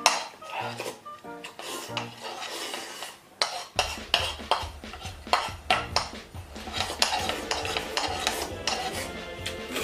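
Chopsticks clicking and scraping against a wooden bowl as curry stew is shoveled into the mouth, several quick clicks a second, over background music.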